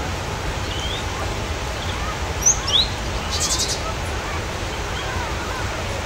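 Newborn puppies whimpering in short, faint, rising-and-falling squeaks over a steady hiss, with a couple of louder, sharper squeaks about two and a half seconds in.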